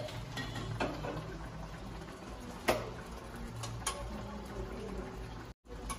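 Thick caldereta sauce simmering in a stainless steel pan on an electric hot plate, over a steady low hum, with a few sharp clicks, the loudest about two and a half seconds in. The sound cuts out for an instant near the end.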